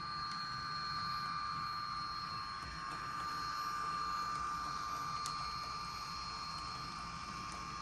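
HO scale Proto 2000 PRR SD45 model with a Tsunami 2 sound decoder, playing its EMD 20-cylinder diesel engine sound through a small speaker, with the rumble of its wheels on the track. It is a steady hum that grows a little louder around the middle as the locomotive passes.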